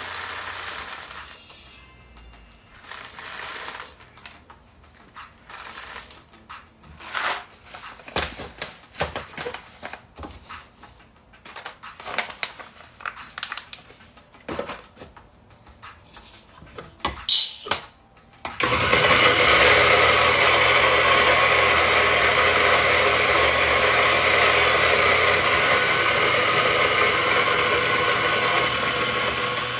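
Coffee beans clattering and rattling in short bursts as they are poured from their bag and handled, then an electric coffee grinder switches on about 18 seconds in and runs steadily, grinding the beans.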